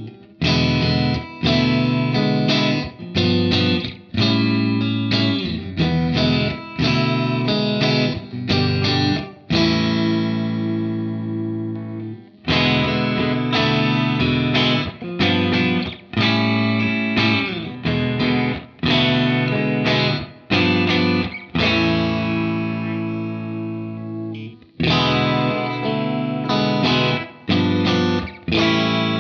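James Tyler Japan Studio Elite HD electric guitar played with a clean tone: chords strummed in a steady rhythm, with a few chords held and left to ring out and fade in between.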